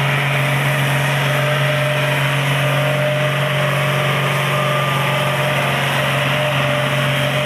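Loud diesel tractor engine running steadily as the tractor hauls the weight sledge in a tractor pull.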